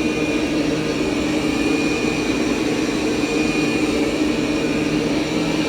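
Dreame L20 Ultra robot vacuum running on carpet: a steady suction-fan hum with a thin high whine over it.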